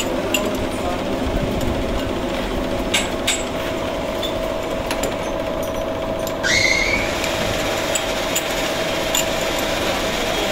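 Metal clinks and knocks as a lathe's three-jaw chuck is tightened on a workpiece with a chuck key, over a steady machine hum. A short rising squeak comes about six and a half seconds in.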